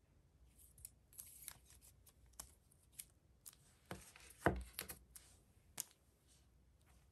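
Glossy photo prints being handled: a series of light paper rustles and clicks as the stack is shuffled and squared, with a soft tap about four and a half seconds in as it is set down on the table.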